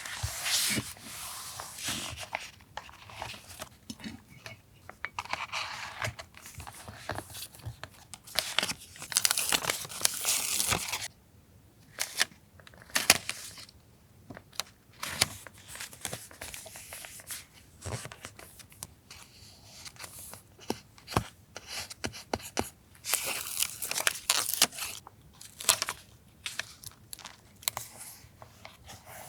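Paper being torn and handled for a collage journal: repeated rasping tears and rustles of a second or two each, with light taps and clicks in between.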